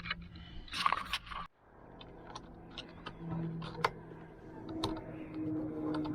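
Scattered light clicks and small rattles of hands handling metal parts, over a faint steady low hum.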